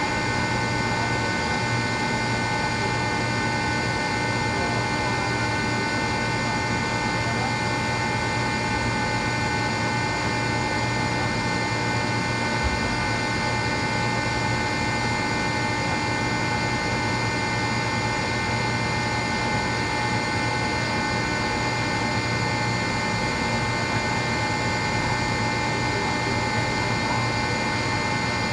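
Rotary screw air compressor running steadily: a constant mechanical drone with a steady high whine over it.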